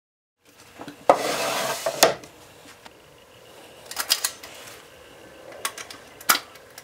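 The wooden sliding lid of a stereo console scraping as it is slid open, a loud rub lasting about a second, followed by a few sharp clicks as the record-changer controls are worked.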